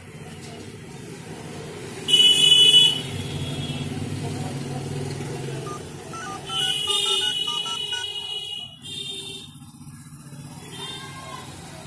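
Road traffic with engines running and vehicle horns honking: a short, loud blast about two seconds in and a longer one a few seconds later.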